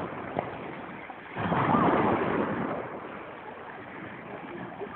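Small sea waves washing onto a pebble beach, with one wave surging up the stones loudest about a second and a half in, then easing back.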